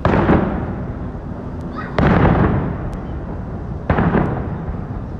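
Aerial fireworks shells bursting overhead: three loud bangs about two seconds apart, each followed by an echo that dies away.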